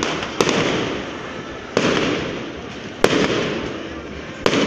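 Aerial firework shells bursting overhead: four sharp bangs, about one every second and a half, each followed by a rolling echo that fades away.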